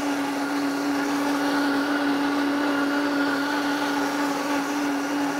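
Vitamix A3500 blender motor running at a steady, even pitch on its smoothie preset, blending a thick green smoothie of frozen mango, kale and fruit; these are the final seconds of the 50-second program.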